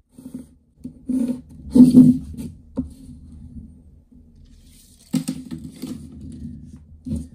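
Irregular knocks, taps and scraping of hands-on work, loudest about two seconds in, with another cluster of knocks just after five seconds.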